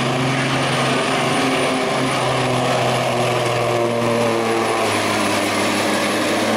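Diesel semi-tractor engine running hard under heavy load as it pulls a weight-transfer sled, a steady loud note that drops slightly in pitch about five seconds in as the load builds.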